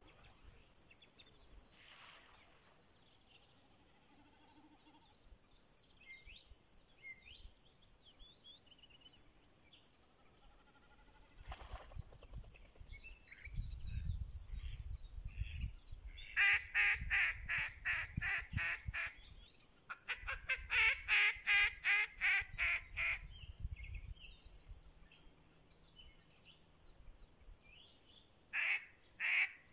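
Mallard hen quacking in rapid runs of about ten loud quacks, roughly three a second, twice and then again near the end, calling to a drake. Faint small-bird chirping runs beneath, with a low rumble through the middle.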